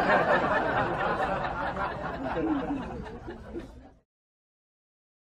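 People's voices chuckling and chattering, which fade and then cut off abruptly into silence about four seconds in.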